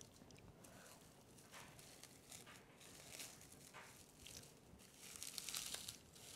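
Plastic cling film crinkling and rustling faintly as butter is rolled and shaped into a log inside it, with a louder stretch of crackly rustling near the end.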